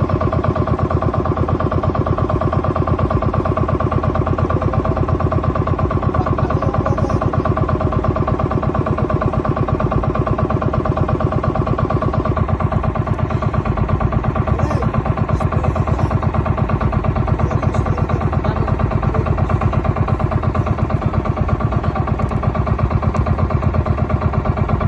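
Motorized bangka's engine running steadily while the outrigger boat cruises, a fast, even pulse of firing strokes with no change in speed.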